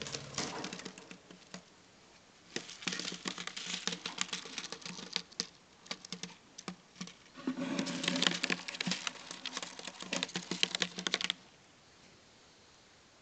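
Rapid, irregular scratching and clicking in a wooden budgerigar nest box: claws and a hand scrabbling on the floor among scattered seed. It is busiest near the end and stops suddenly about 11 seconds in.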